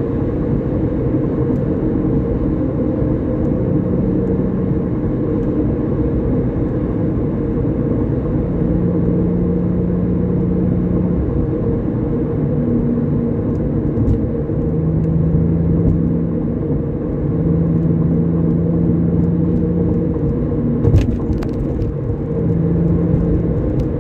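Porsche 996 flat-six engine and road noise heard from inside the cabin at a steady highway cruise: a continuous low drone with a hum that comes and goes. A brief knock near the end.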